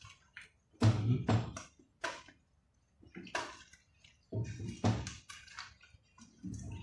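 A plastic spatula stirring shrimp, string beans and squash in a wet coconut sauce in a non-stick pot: wet sloshing and scraping strokes in irregular bursts.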